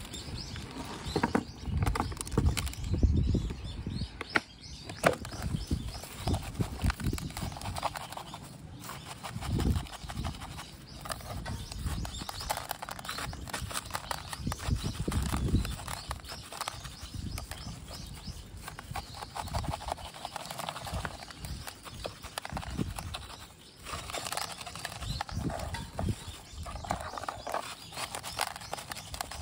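Coarse granular bonsai soil crunching and clicking as it is pressed and worked into a small pot around a pine's roots, with irregular knocks and thumps from the handling.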